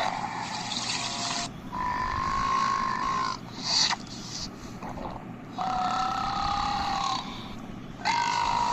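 A run of long, drawn-out burps, three of them held at a steady pitch for a second or more each, with shorter rough bursts between them.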